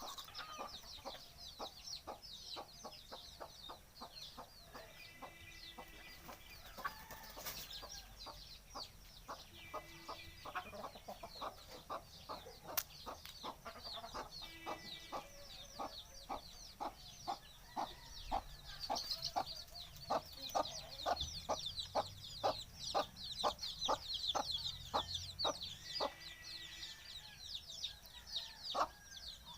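Domestic chickens clucking and calling, with many high short chirps over a steady run of short sharp ticks about two a second.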